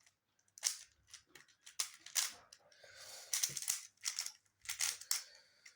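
A 3x3 Rubik's cube being turned fast in a timed solve: its plastic layers click and clack in quick, irregular runs, with a longer scraping turn about three seconds in.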